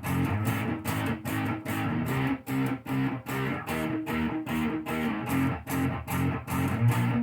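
Electric guitar played through an amplifier in a rhythmic riff, with about three picked or strummed chords a second.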